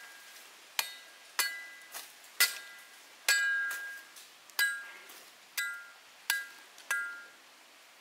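A machete blade chopping at a thin branch nine times at an uneven pace, each chop a sharp hit followed by a short metallic ring.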